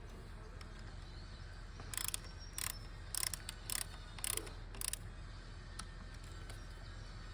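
Ratcheting torque wrench tightening the fork crown bolts to final torque: about six short bursts of ratchet clicks in quick succession, one per stroke, in the middle of the stretch.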